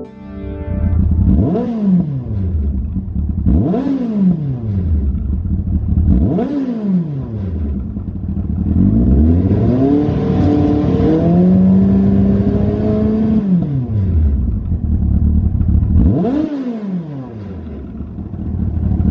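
Yamaha FZS1000's inline-four engine revved through a Lextek RP1 aftermarket silencer: four quick throttle blips, each rising and falling in pitch, with idle in between, and one longer rev about halfway through that climbs, holds for about four seconds and drops back to idle.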